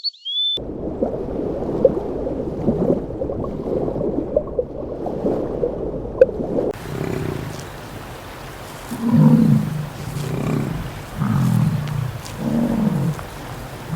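A cat yowling in a string of low, drawn-out calls, each about a second long. Before it, a dense crackly noise with small clicks stops suddenly.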